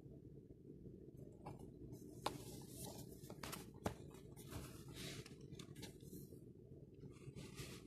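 Fingers handling and sliding over a cardboard phone box: faint rustling scrapes from about a second and a half in, with two sharp taps about a second and a half apart, over a steady low hum.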